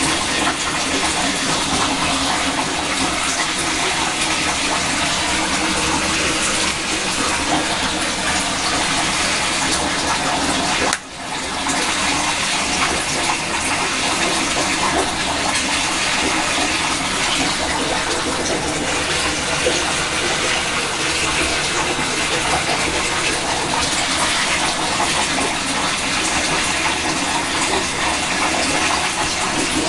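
A loud, steady rushing noise, like running water, that drops out briefly about eleven seconds in.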